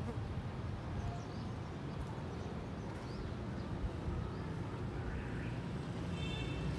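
Steady low outdoor rumble, like distant traffic or wind on the microphone, with a few faint high chirps. Near the end comes a short, high call.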